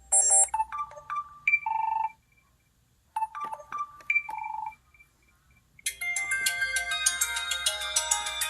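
Samsung Conquer 4G phone playing its ringtones: a short phrase of a few rising electronic notes ending on a held tone sounds twice with a pause between, then a busier, fuller melody starts about six seconds in.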